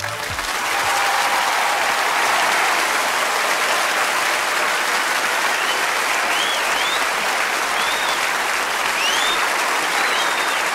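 A large audience applauding steadily as a song ends, swelling up within the first second, with a few short whistles over it in the second half.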